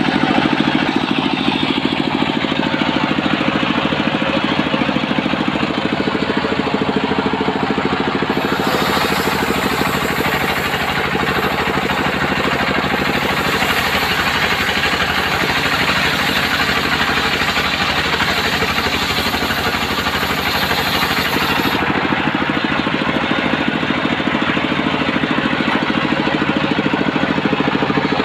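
Homemade circular sawmill running steadily, its motor giving a constant hum. From about eight seconds in to about twenty-two seconds the blade is in the coconut-palm log, adding a high hiss of sawing before it drops back to running free.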